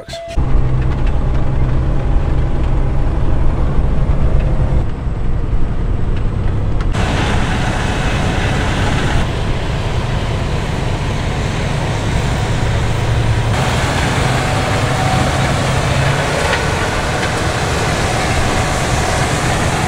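Harvest machinery running in a corn field: a Fendt tractor pulling a tracked grain cart, and a combine harvesting corn. A steady engine drone throughout, changing abruptly several times where the shots change.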